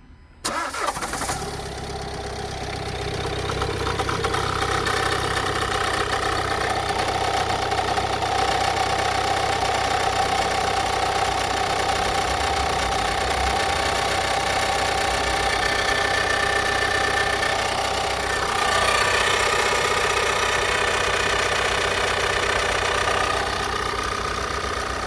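Renault Kadjar's 1.6 dCi four-cylinder diesel engine cranks and starts about half a second in, then idles. A few seconds after start a steady whine comes up over the idle and lasts about ten seconds; this is the owner's unexplained strange noise after start. Near the end a second, louder whining tone sounds for a few seconds before dropping away.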